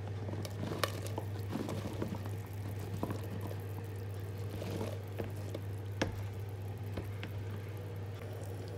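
Sliced mushrooms tipped off a chopping board into a pressure cooker of simmering potato curry: soft plops and a few scattered knocks over gentle bubbling, with a steady low hum underneath.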